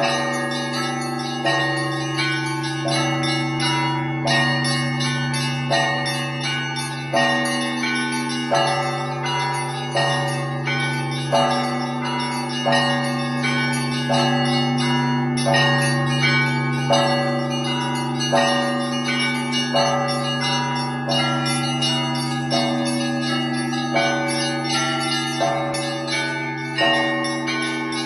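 Russian Orthodox church bells ringing a full peal (zvon). The deep hum of a large bell holds steady beneath quick, repeating patterns on smaller bells, with a stronger strike about every second and a half.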